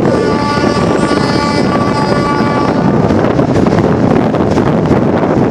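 Wind buffeting a microphone held out of the window of a moving passenger train, over the train's running noise. For about the first three seconds a steady high tone with several overtones sounds over it, then stops.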